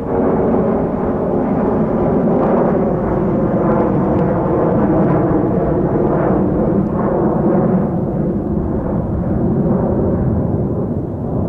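Jet airliner engines rumbling loudly and steadily, with a few held droning tones over the low roar.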